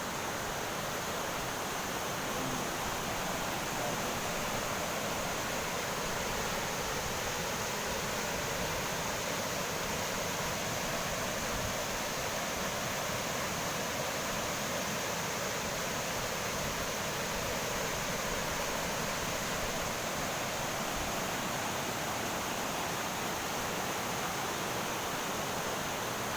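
Flood-swollen river rushing and pouring over a small waterfall: a loud, steady rush of water with no change in level.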